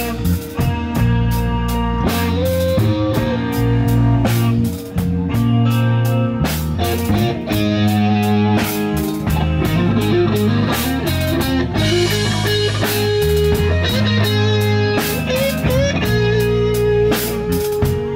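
Rock band playing: electric guitar over a steady drum-kit beat.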